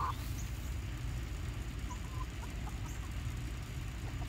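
Backyard chickens clucking softly as they forage, a few short calls about two seconds in, over a steady low rumble.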